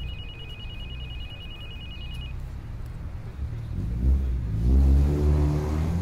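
A car engine revs up and accelerates past, its note rising and loudest about five seconds in, over a low traffic rumble. Before that, a high electronic trill, like a telephone ringing, sounds and stops about two seconds in.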